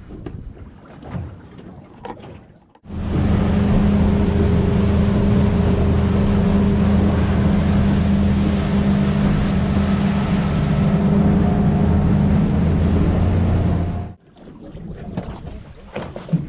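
Boat outboard motor running steadily at speed, with water rushing along the hull and wind on the microphone. The sound starts abruptly about three seconds in and cuts off about three seconds before the end.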